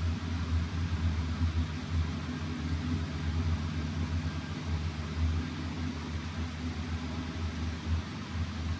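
Electric blower fans inside the inflatable decorations running together: a steady low hum with a rush of air over it.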